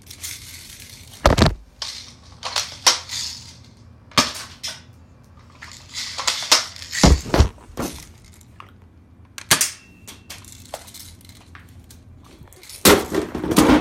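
Pistol-grip airsoft shotgun being fired repeatedly: a series of sharp cracks and clacks at irregular intervals, with a rapid cluster near the end.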